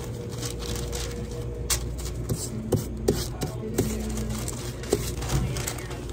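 Sheets of paper being spread and smoothed on a plastic cutting board, with a few sharp taps and rustles over a steady low hum.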